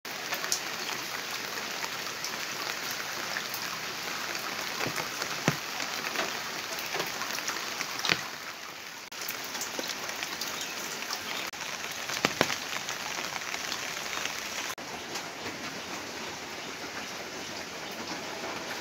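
Steady rain falling, a constant hiss with scattered sharper drips and splashes.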